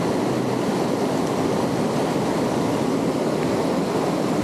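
Fast river current rushing steadily over rocks.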